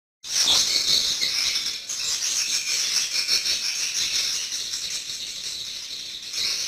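Swiftlets twittering in a dense, continuous high rattling chatter that starts abruptly just after the beginning, following a brief silence.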